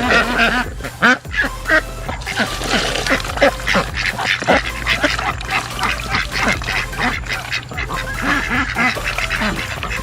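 Several farm ducks quacking over and over as they wait for their feed.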